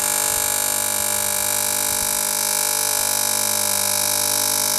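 ZIM-500 electric hammer-type grain crusher running steadily at full speed, freshly switched on: an even, high-pitched whine over a low hum.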